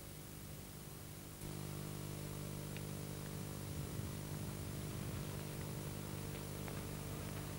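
Steady background hiss with a low hum, which steps up in level about a second and a half in; nothing else stands out.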